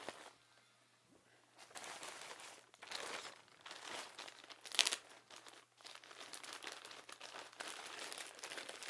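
Mailed package being opened by hand: the packaging crinkles and rustles in irregular handfuls, with a sharp tear or crackle a little before five seconds in. The first second and a half is nearly quiet.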